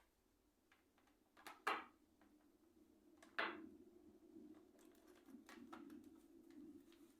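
Two sharp clacks of hard objects being handled, the first about a second and a half in and the louder, the second about two seconds later, followed by a faint steady low hum.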